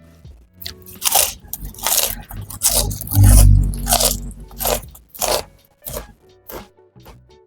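Close-up crunching and chewing of crisp fried food: about a dozen loud crunches, roughly two a second, with a heavy low thump near the middle.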